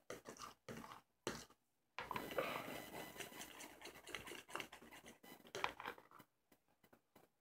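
A mixing utensil stirring body wash and salt in a bowl, making irregular scraping and clicking sounds against the bowl.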